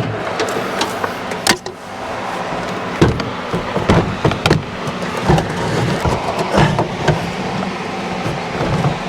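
A fan running steadily, with scattered knocks and clicks as panel parts are handled and fitted back together.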